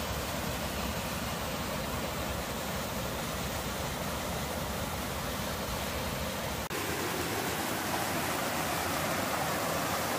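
Whitewater of a rocky mountain stream rushing down a small cascade, a steady, loud rush of water. About two-thirds through the sound changes abruptly to a brighter, hissier rush with less low rumble.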